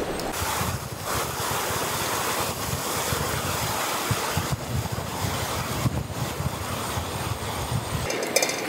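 Rushing river water pouring over rocky rapids: a steady, even wash of noise. A few short clicks come near the end.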